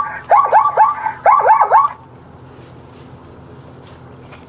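Plains zebra barking: a quick run of high yelping calls, each dropping in pitch, in two bursts of three, stopping about two seconds in. After that only a faint steady background remains.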